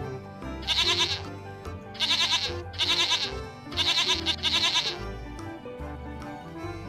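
Goat bleating five times in quick succession, each bleat a quavering call, over background music.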